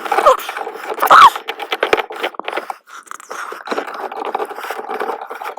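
Scraping and small clicks of a plastic outlet faceplate being fitted and its screw driven in by hand, with two short falling squeaks in the first second and a half.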